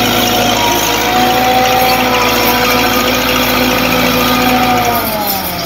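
Belarus tractor's diesel engine running steadily as the tractor pushes dirt with its blade; about five seconds in the engine note falls as the revs drop.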